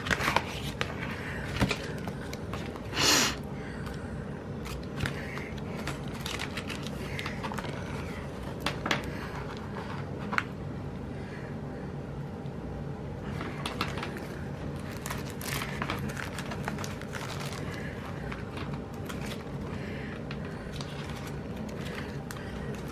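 Paper sticker sheets and planner pages being handled: scattered light clicks and rustles, with one louder rustle about three seconds in, over a steady low hum.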